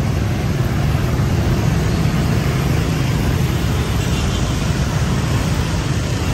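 Dense scooter and motorbike traffic passing on a city street: a steady, unbroken mix of small engines and road noise.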